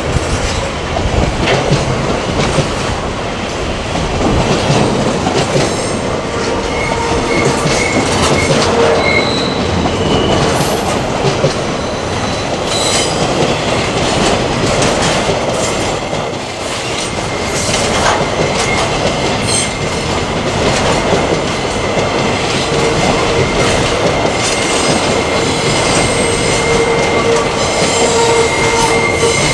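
Freight train's container wagons rolling past on a curve: a steady rumble of wheels over the rails, with thin squealing tones from the wheels that come and go. A brief shrill squeal rises about halfway through, and a steady squeal runs through the second half.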